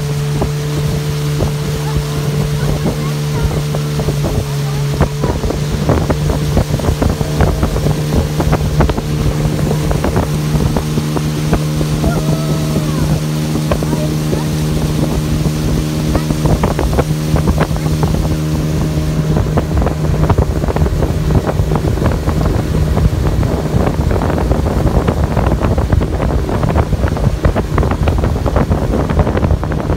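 Speedboat engine running steadily at speed, with water rushing along the hull and wind buffeting the microphone. The engine's steady hum fades about two-thirds of the way through, leaving mostly wind and water noise.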